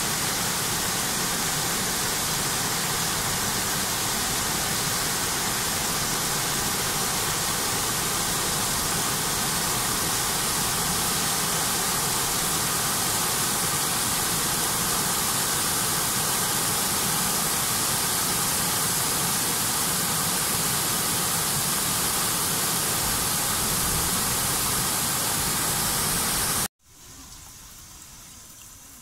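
Water rushing over low stepped river weirs: a steady, loud, even rush. About 27 seconds in it cuts off abruptly, leaving a much quieter trickle of water running from a bamboo spout into a wooden shrine hand-washing basin.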